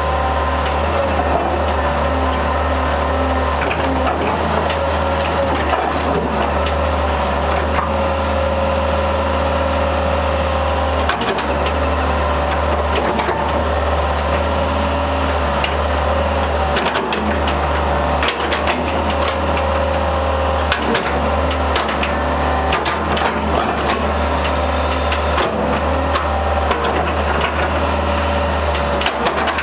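Hitachi EX100M-3 hydraulic excavator's diesel engine running steadily while the boom, arm and bucket are worked, with frequent short knocks and clicks.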